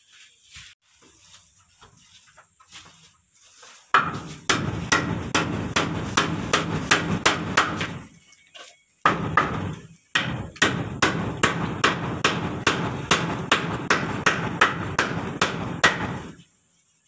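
Hammer blows on the wooden window frame of a plank wall, about three a second, in two long runs with a short break near the middle. The first few seconds hold only faint knocks.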